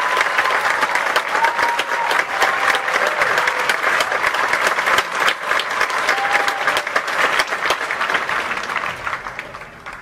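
Audience applauding, a dense crowd of hands clapping, with a few short calls over it; the clapping dies away over the last couple of seconds.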